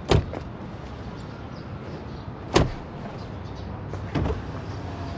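Three sharp thumps, the second about two and a half seconds after the first and the third about a second and a half later, over a steady low hum.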